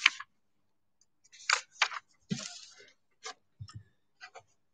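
Scattered brief rustles and clicks with a couple of soft low knocks: handling noise close to a microphone between the Bible reading and the sermon.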